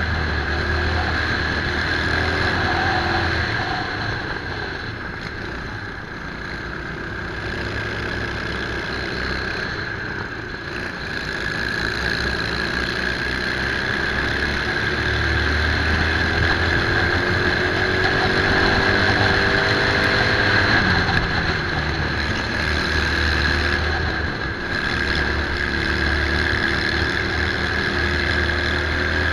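Onboard sound of a racing kart's engine at speed, its note falling away twice early on as it slows for corners, then rising steadily for several seconds along a straight before dropping sharply about two-thirds of the way through as the throttle comes off.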